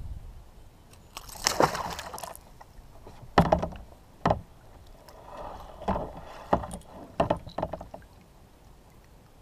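Handling knocks and clatter on a kayak: a short rushing noise about a second in, then half a dozen sharp hollow knocks at irregular intervals as tackle and gear bump the hull.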